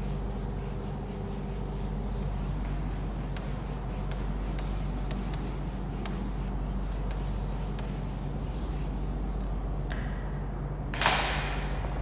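Whiteboard eraser rubbing and wiping across a whiteboard, over a steady low electrical hum. About 11 seconds in there is a short, loud rustle that fades quickly.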